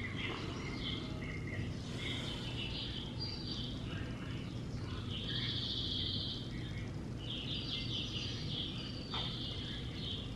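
Small birds chirping repeatedly in short high calls, some as rapid trills, over a steady low hum.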